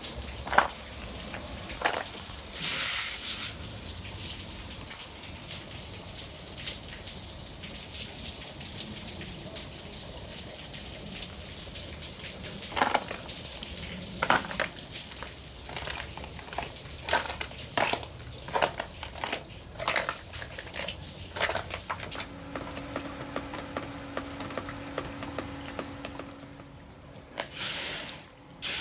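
Irregular sharp ticks and taps of hailstones and dripping meltwater over a soft crackling background. A faint steady hum joins about two-thirds of the way in.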